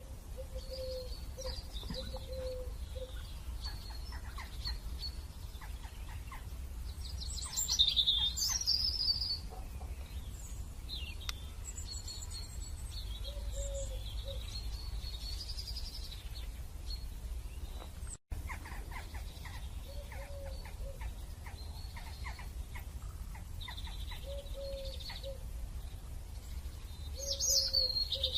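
Birds chirping and calling, with high twittering notes throughout and louder bursts of chirping about eight seconds in and again near the end.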